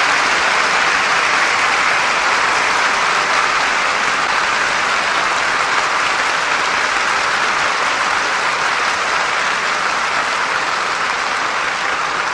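Concert audience applauding steadily, a dense, even clapping that holds at one level throughout.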